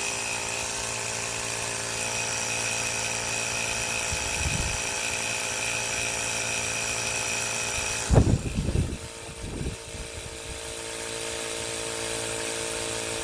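Air compressor motor running steadily while it inflates a dirtbike tire, the pressure climbing from about 22 toward 30 psi. About eight seconds in there is a short loud knock and rustle, after which the motor's tone changes and runs steady again.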